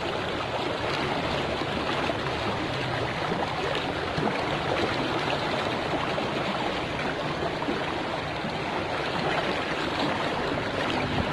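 Swift river current rushing steadily, the river running high and fast after recent flooding.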